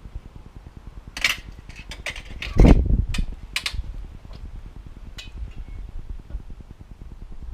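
A piece of wire coat hanger being handled and worked, giving a string of sharp metallic clicks and clinks with one heavier thump about two and a half seconds in.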